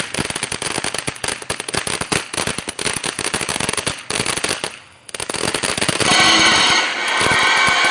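Crackling firework or firecracker string going off in rapid, dense pops for about five seconds. It dips briefly, crackles again, then gives way to a louder, steady, shrill, pitched sound over the last two seconds.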